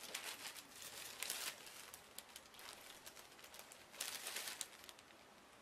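Plastic bread bag crinkling as it is opened and handled, in clusters near the start and again about four seconds in.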